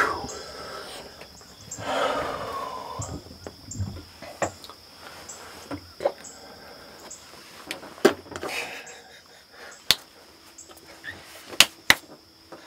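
Scattered small clicks and knocks as a hunter handles a scoped rifle at a box blind's window, over a steady high hum.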